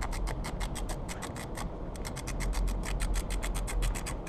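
Small hand ratchet clicking rapidly as it turns a bolt, about seven clicks a second, with a short break about two seconds in.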